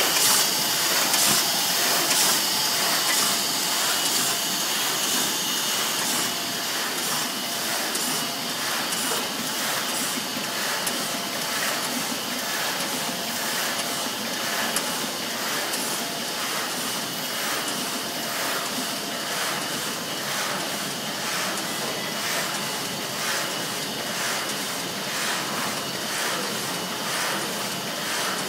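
Automatic sheet-fed die-cutting press running at production speed: a steady mechanical din with a hiss of air, and a regular beat of roughly two strokes a second as it cycles sheet after sheet.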